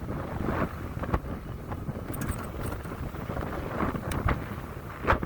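Wind buffeting the microphone while riding a fat-tire e-bike, with a steady low rumble and scattered knocks and rattles from the bike, the loudest just before the end.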